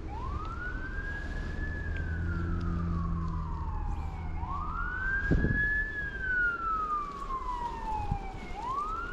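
Emergency vehicle siren wailing, its pitch climbing quickly, holding, then sliding slowly down, repeating about every four seconds, over a low traffic rumble. A dull thump about five seconds in.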